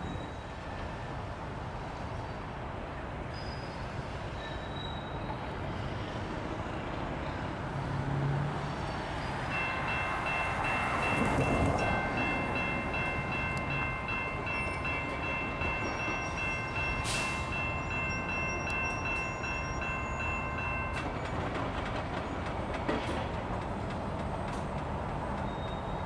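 EMD SD38-3 diesel road switcher moving a cut of covered hoppers, its engine and rolling cars making a steady rumble. About ten seconds in, its air horn sounds one long held chord for roughly eleven seconds, then cuts off.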